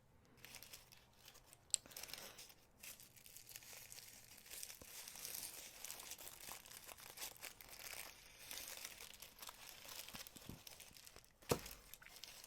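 Packaging being handled, faint crinkling and rustling, with a sharp click about two seconds in and another near the end.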